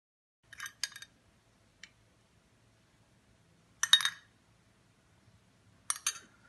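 A metal spoon clinking against a small dish and a plate while strawberry jam is spooned out. There are a few short clinks, the loudest about four seconds in and another pair near the end.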